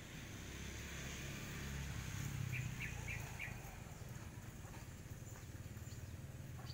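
Steady low outdoor rumble, with four quick short high-pitched sounds in a row about two and a half seconds in.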